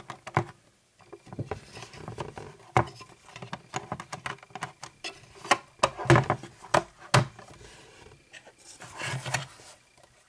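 Hard plastic clicking and knocking from handling a toy Snowspeeder: an action figure is pressed into its cockpit and the canopy is snapped shut. Irregular sharp clicks throughout, the loudest cluster a little past halfway.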